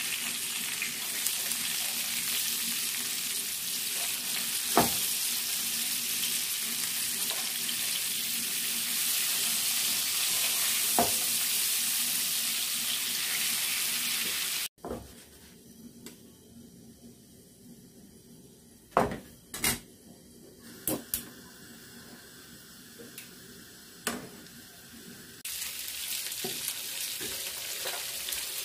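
Mackerel steaks frying in hot oil in a non-stick pan: a steady sizzle, with a metal spatula clicking against the pan a couple of times. About halfway the sizzle cuts off abruptly; a few sharp knocks of utensils follow, and a sizzle starts again near the end.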